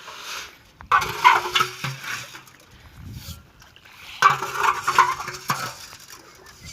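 Water splashing in two bursts, about a second in and again about four seconds in.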